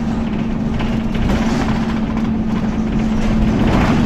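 Dennis Dart SLF bus under way, heard from inside the rear of the saloon: engine and cooling fan running with a steady droning tone over road noise. The tone steps up in pitch near the end.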